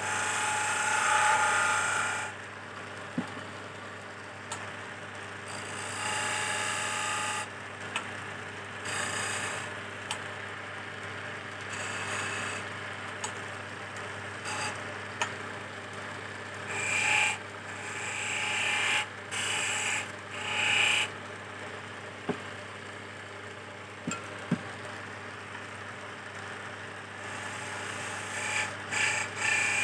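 Belt-driven wood lathe running with a steady hum while a hand-held chisel cuts a spinning teak chess piece. The cutting comes in scraping bursts of a second or two, several times over, with quieter gaps where only the lathe runs.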